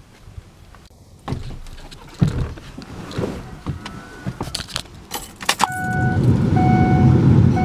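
Clicks and rattles of keys being handled, then about two-thirds of the way in the 2005 Ford F-350's 6.0-liter Power Stroke diesel V8 starts and runs at a steady idle. A dashboard warning chime rings on and off about once a second as it starts.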